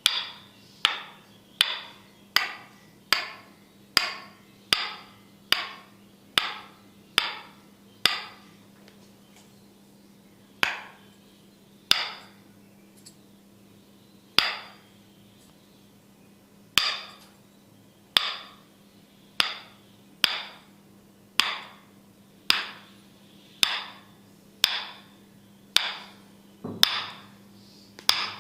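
Tok sen massage: a wooden mallet striking a wooden stick held against the body, giving sharp, ringing knocks. At first they come a little faster than one a second; after a short pause there are a few widely spaced knocks, then they settle to about one a second. A faint low hum runs underneath.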